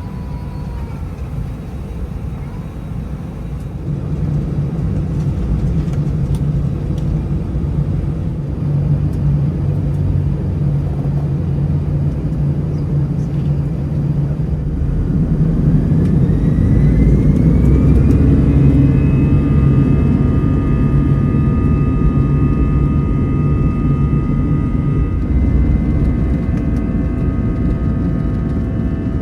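Airbus A319 jet engines heard from inside the cabin, over a low rumble that grows louder a few seconds in. About halfway through, a whine rises in pitch and then holds as several steady tones as the engines spool up to takeoff thrust for the takeoff roll.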